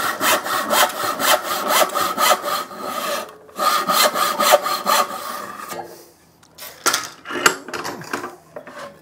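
A 22-inch hand saw ripping a hardwood board along the grain with quick, even back-and-forth strokes, then one longer, smoother stroke after a short break. The sawing stops about six seconds in, followed by a few light knocks.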